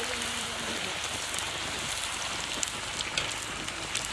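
Puris deep-frying in hot oil: a steady sizzle with small scattered crackles.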